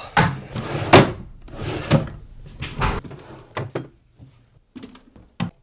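Nightstand drawers being yanked open, rummaged through and pushed shut: a string of sliding thuds and knocks, the loudest about a second in.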